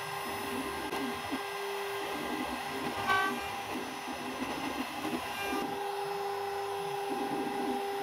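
DIY CNC router at work: its motors whine steadily, the pitch gliding up and down and breaking off as the axes move, with a brief louder whine about three seconds in.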